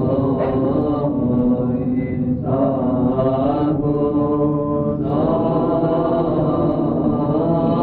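Orthodox Byzantine chant: voices singing slow, held notes that change pitch every second or two over a steady low drone.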